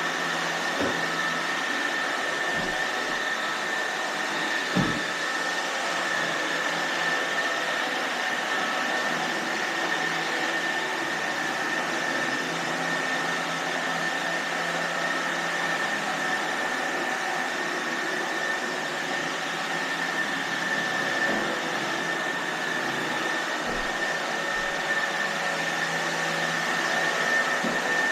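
iRobot Roomba robot vacuum cleaners running, a steady motor and suction noise with a constant high whine. A few faint knocks come through, the clearest about five seconds in.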